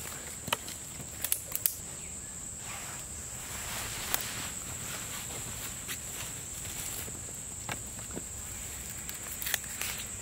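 Insects droning steadily on one high pitch, with a few sharp clicks and knocks scattered through it, the loudest around a second and a half in and again near the end.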